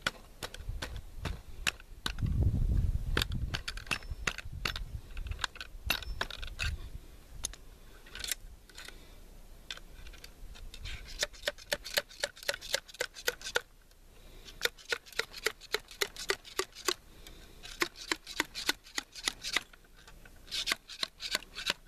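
Many small clicks, taps and scrapes as a ramrod and loading gear are worked at the muzzle of a .54 caliber percussion muzzleloading rifle, coming faster later on. A louder low rumble comes about two seconds in.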